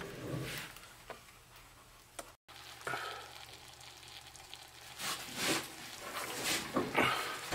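Chicken pieces frying and sizzling in hot oil in a metal canteen cup, with louder surges of sizzle between about five and seven seconds in.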